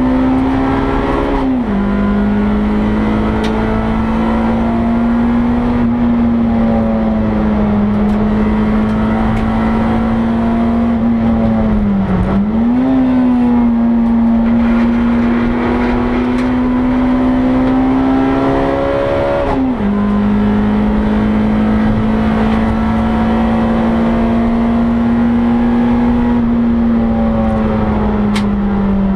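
Honda Integra DC2's four-cylinder engine heard from inside the stripped, caged cabin, pulling hard at high revs on track, its pitch creeping steadily upward. The pitch drops sharply at an upshift about a second and a half in, and again about two-thirds of the way through. A quick dip and jump in pitch comes near the middle and again right at the end.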